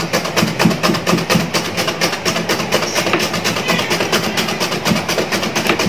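Potatoes being sliced on a handheld stainless-steel slicer: a fast, even run of scraping strokes as the potato is rubbed back and forth over the blade.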